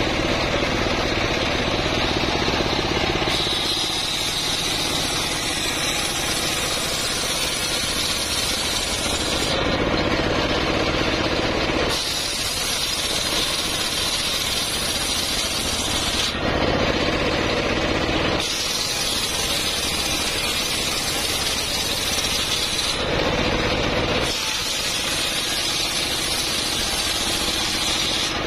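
Homemade engine-driven circular saw bench ripping old mahogany: the blade's high hiss comes in four cuts of several seconds each, with the engine and freewheeling blade running steadily between them.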